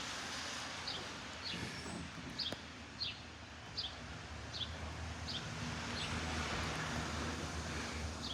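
Airbus A350 airliner's jet engines rumbling overhead, a little louder from about five seconds in. A bird repeats a short, high, falling chirp about once every second over the rumble.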